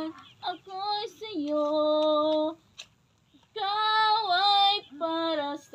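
A woman singing unaccompanied, holding long notes in short phrases, with a pause of about a second near the middle.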